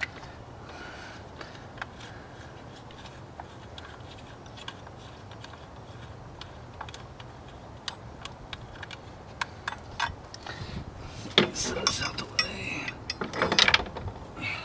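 Light metal clicks and clinks as the finned metal housing of a fuel injection control module is handled and set onto its mount under the hood, scattered at first and turning into a busier clatter of knocks from about ten seconds in.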